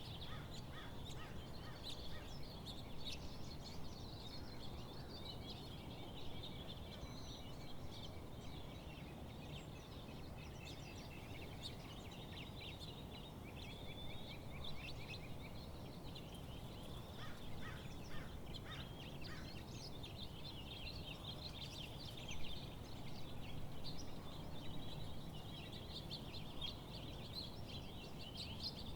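A chorus of several birds chirping and singing, with quick overlapping calls and trills throughout, over a steady low outdoor background noise.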